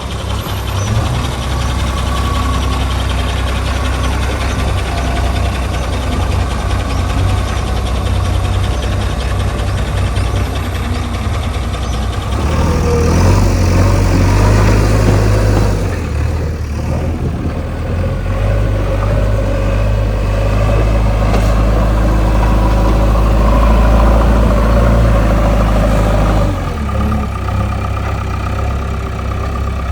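JCB 3DX backhoe loader's diesel engine running, revving up under load twice: from about 12 seconds in and again from about 18 to 26 seconds, then settling back toward idle.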